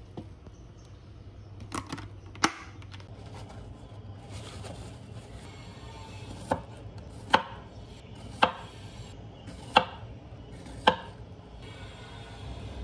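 Kitchen knife slicing strawberries on a wooden cutting board: a series of sharp knocks as the blade strikes the board, about seven of them, irregularly spaced.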